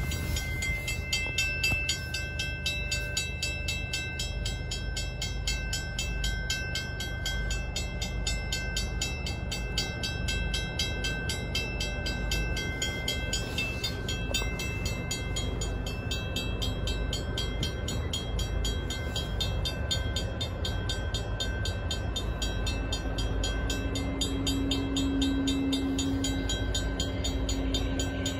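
An approaching Buffalo & Pittsburgh EMD GP40-3 diesel locomotive set gives a steady low rumble that grows a little louder over the last few seconds. Over it a grade-crossing bell rings rapidly and steadily, and a low horn note sounds faintly for a few seconds near the end.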